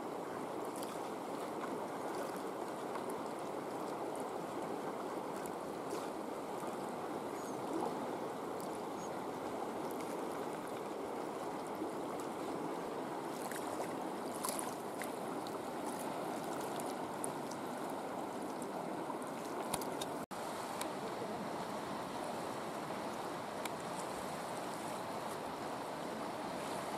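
Steady rushing of a river flowing, with a brief cut-out about twenty seconds in.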